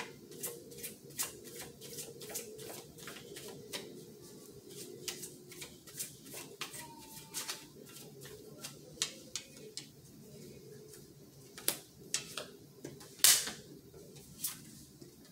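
A tarot deck shuffled by hand, a quick irregular run of soft card clicks and flicks. Near the end come a few louder, sharper clicks as cards are drawn and set down on a glass tabletop.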